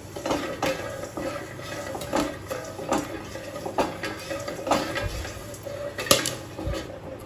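Popcorn kernels popping in a covered stainless-steel kadhai, scattered sharp pops knocking against the steel plate lid, while a wooden spatula stirs the kernels with a steady rustle. A few louder knocks come about five to six seconds in.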